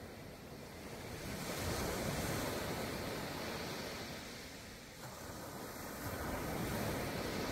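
Gulf of Mexico surf: small waves breaking and washing up the beach, the wash swelling twice, about two seconds in and again near the end.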